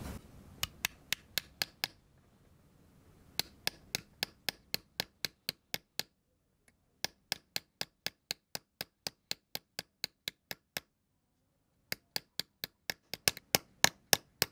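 Light hammer taps on a steel acorn nut used as a doming punch, pressing a small metal lure blank into a spoon curve against a wooden stump. The taps are sharp metallic ticks at about five a second, in four runs with short pauses, and the last run is the loudest.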